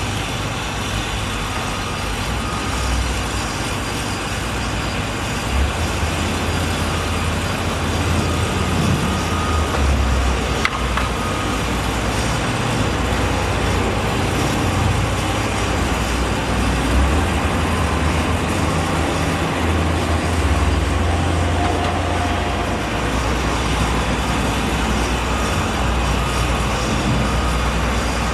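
Steady road traffic noise with a shifting low rumble.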